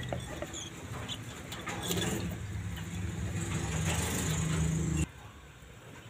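A motor engine running steadily, growing gradually louder, then cut off suddenly about five seconds in.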